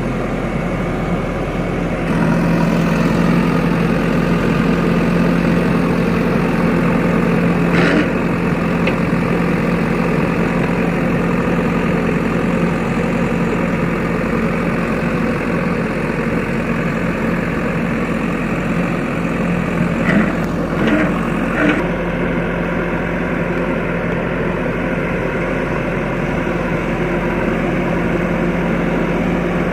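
JCB backhoe loader's diesel engine running steadily under work, picking up in level about two seconds in. A short knock about eight seconds in and a few more brief knocks later on.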